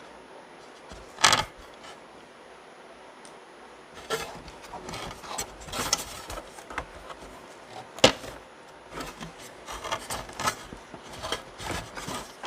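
Hands working a vacuum cleaner's cord wires into a butt connector: rubbing, rustling and scattered small clicks. There is a sharp knock about a second in and a sharp click about eight seconds in.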